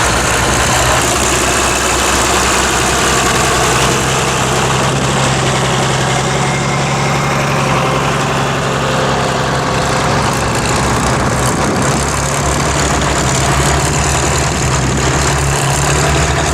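Diesel tractor engine running steadily, with wind noise on the microphone.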